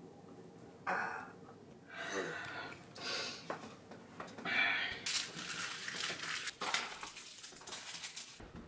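Paper wrappers of adhesive bandages rustling and crinkling as they are opened and crumpled, in short bouts at first and then almost continuously in the second half, with light handling clatter.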